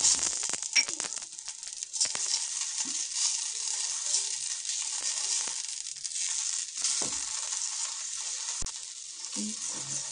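Stuffed potato-and-bathua paratha frying in oil on a hot tawa, with a steady sizzle. A few clicks and scrapes come as it is pressed and moved, near the start, about two seconds in and about seven seconds in.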